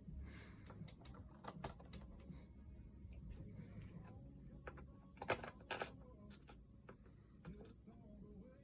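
Scattered light clicks and taps of tiny screws and a small screwdriver being handled against a Chromebook's plastic casing, with two sharper clicks a little past halfway.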